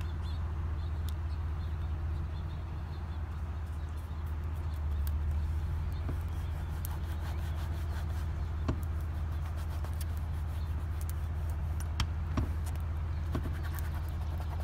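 Steady low machine hum, like an engine or motor running nearby, with a few faint clicks scattered through it.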